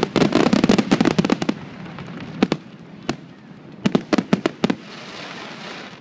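Aerial fireworks bursting overhead: a dense, rapid crackle of many quick reports for the first second and a half, then scattered single sharp bangs, and a soft hiss near the end.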